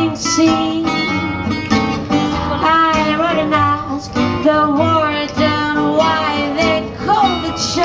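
Live amplified music from an outdoor stage: a singer over guitar accompaniment, played through a large PA.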